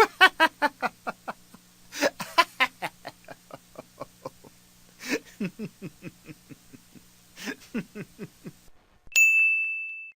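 Rapid, choppy laughter in several runs of quick 'ha' pulses over a low hum, then a single bright ding near the end that rings and fades out over about a second.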